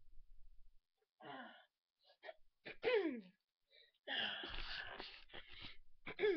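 A person with a cold sneezing: a smaller sneeze about a second in, then a loud one about three seconds in whose voice falls in pitch, followed by a longer stretch of noise.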